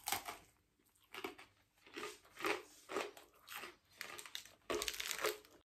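Crunching of a mouthful of crisp, oven-baked zucchini and potato schiacciata being chewed, about two crunches a second.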